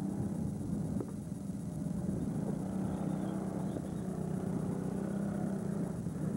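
An engine idling steadily with a low, even hum. A short click about a second in.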